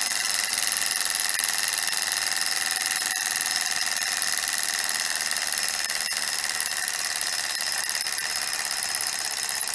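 Sunnytech alpha-type hot-air Stirling engine with twin flywheels running fast, a steady high mechanical buzz from its pistons and flywheels. It is coasting on the heat left in it with the alcohol burner out, so the sound slowly gets quieter as it winds down.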